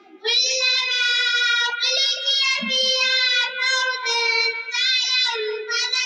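A young girl chanting Quranic recitation in a melodic tajweed style into a handheld microphone, in long drawn-out phrases with short breaths between them.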